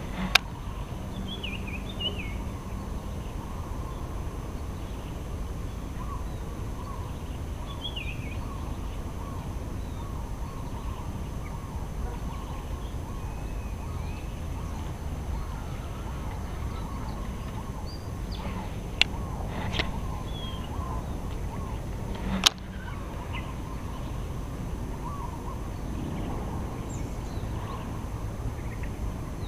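Birds chirping briefly now and then over a steady low outdoor rumble, with three sharp clicks: one right at the start and two about two-thirds of the way in.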